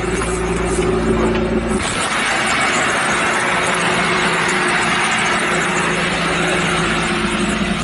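Suzuki Samurai's BMW M42 1.8-litre four-cylinder engine running steadily at idle. About two seconds in, a steady, louder rushing noise takes over.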